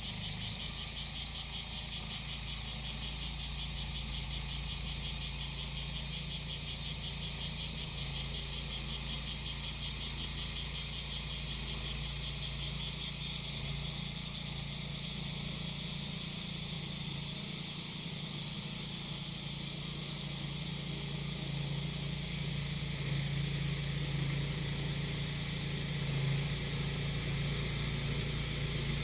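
Cicadas singing in a high, rapidly pulsing chorus that turns to a steadier drone about halfway through, over the steady low hum of a grass-cutting machine's small engine, which gets somewhat stronger toward the end.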